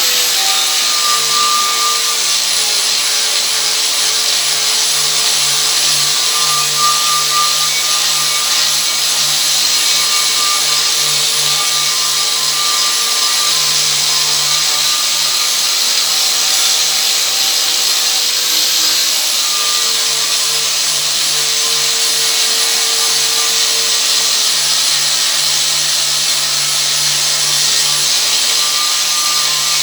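Angle grinder with a flap disc running continuously as it grinds rust and iron-oxide paint off a piece of steel, its whine wavering slightly in pitch as the disc bears on the metal.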